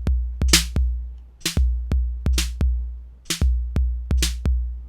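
Roland TR-08 drum machine playing a programmed beat, its snare voice set to a mid tone. Long, low 808 bass-drum hits decay under short, hissy snare hits, with sharp clicks between them.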